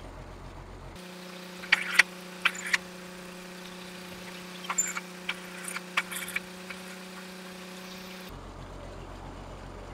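Tube-well boring rig's engine running steadily, with a scatter of sharp knocks from the rig as pipe is lowered into the bore.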